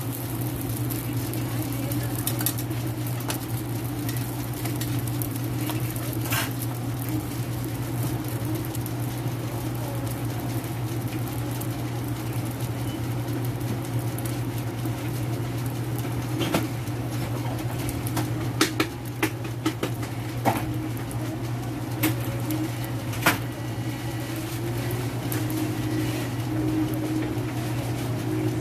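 Hotteok frying on an oiled flat-top griddle under metal presses: steady sizzling over a low steady hum. A handful of sharp clicks and taps come scattered through, several in quick succession past the middle.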